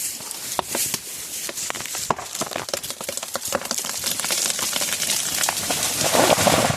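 Redwood tree falling: a dense run of cracks and snaps as the wood fibres give way, building up to a loudest crash near the end, then cutting off.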